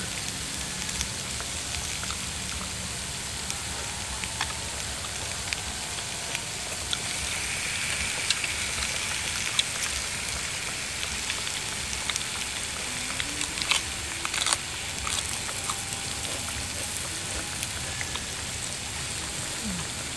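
Pork and shrimp sizzling on a moo kratha grill pan over a charcoal stove: a steady frying hiss with scattered small crackles, and a couple of sharp clicks about two-thirds of the way through.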